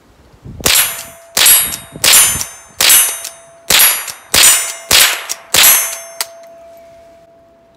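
Rapid string of eight .22 LR rifle shots from a Rossi pump-action, about one every 0.7 s. Each shot is followed by the ringing clang of a steel plate target being hit, and a lingering ring dies away after the last shot.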